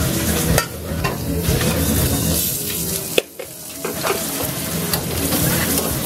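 Food frying in oil in a cast-iron pan, a steady sizzle, with a few sharp metal clicks from serving tongs.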